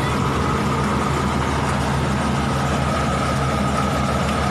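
A large engine running steadily at an even speed, with a steady high whine over its low hum.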